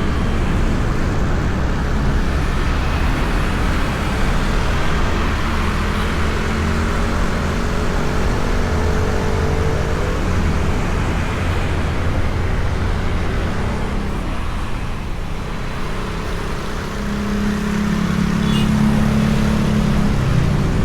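Motorbike ride through traffic heard from a microphone inside the rider's helmet: steady wind rush and road noise with the engine running. An engine note grows louder near the end.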